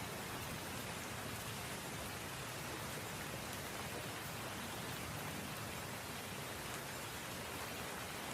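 Steady rain falling, an even hiss of many drops with no single ones standing out.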